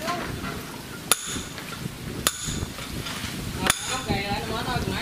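A hammer striking metal three times, about a second and a half apart, each blow sharp with a short high ring.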